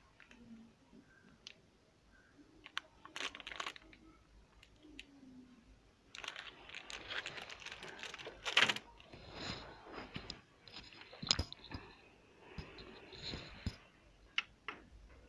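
Handling noise: a few small scattered clicks, then from about six seconds in several seconds of rustling and clicking as a sleeved arm reaches across the desk close to the microphone. A sharper knock comes a little past the middle.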